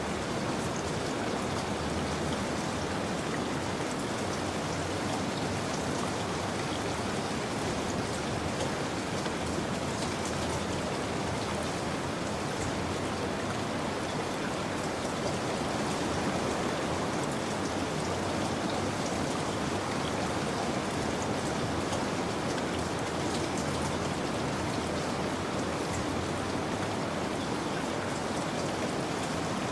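Steady rainfall, with a dense patter of drops on surfaces.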